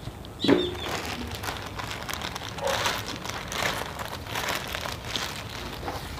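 Thin plastic courier mailer bag crinkling and rustling as hands handle it and pull it open, with a brief pitched sound about half a second in.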